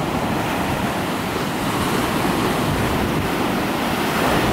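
Ocean surf breaking and washing up a sandy beach in a steady rush, with wind on the microphone.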